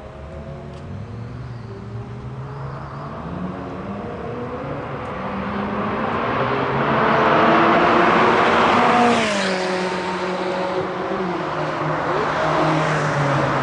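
BMW E60 with an aftermarket exhaust under acceleration, its pitch climbing in steps and growing louder, then dropping sharply about nine seconds in as it shifts up, and pulling again.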